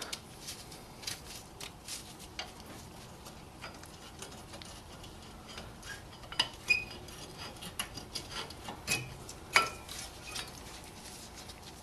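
Front brake pad being worked out of a Toyota Prius caliper bracket: scattered light metallic clicks and clinks, with a few sharper, briefly ringing clinks in the second half.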